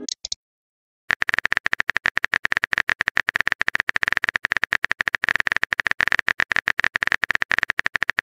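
Rapid keyboard typing clicks from a texting app's sound effect, starting about a second in and running on steadily as a message is typed out.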